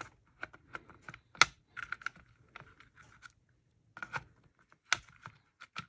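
Scattered small clicks and taps of a brushless RC motor and its mount being handled and pressed into a 1/10 RC car's plastic chassis, with two sharper knocks about one and a half and five seconds in.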